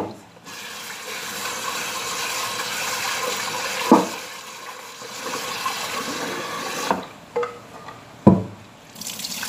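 Kitchen tap running into a rice-cooker pot as glutinous rice is rinsed, the stream loudest in the first few seconds, then water sloshed and poured off. There are a few sharp knocks from the pot being handled.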